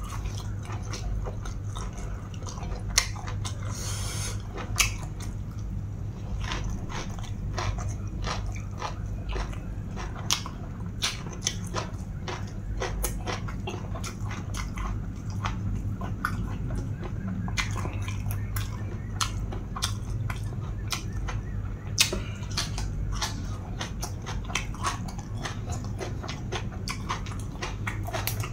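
Close-up eating: chewing with frequent crisp crunches and wet mouth clicks from spicy pounded long-bean salad and raw green vegetable stems, a few crunches much sharper than the rest, over a steady low hum.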